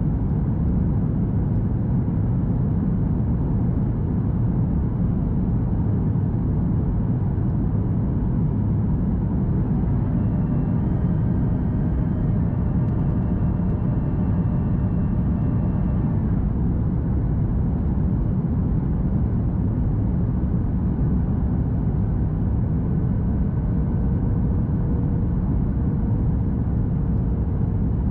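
Steady cabin noise aboard a Boeing 737 MAX 8: a low, even rumble of engine and airflow, with faint pitched tones briefly around the middle.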